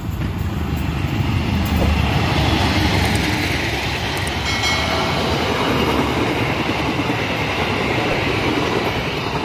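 Diesel-hauled passenger train passing through at speed: the locomotive's engine rumble, loudest about two seconds in, gives way to the steady roar and rail noise of the coaches going by, with a faint high wheel ring near the middle.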